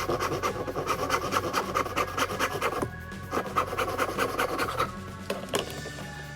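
Hand rasp shaping wood in quick back-and-forth strokes, breaking off briefly about three seconds in and stopping near the end, with background music underneath.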